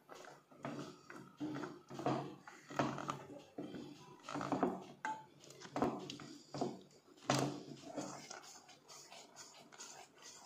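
Silicone spatula stirring chunks of white chocolate through condensed milk in a pan, scraping the pan about once a second as the chocolate melts.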